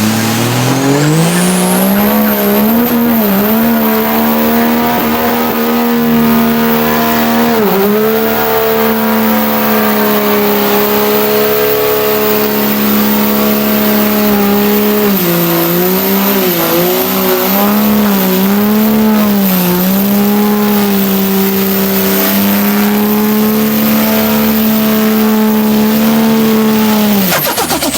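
Third-generation Cummins inline-six turbodiesel revving up and held at high revs with a high turbo whistle, the pitch dipping a few times. Near the end it drops off sharply into a rapid turbo flutter.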